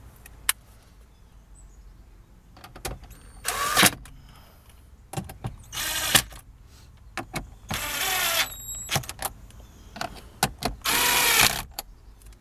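Power drill running in four short bursts, its motor whine rising and falling in pitch each time as it drives screws.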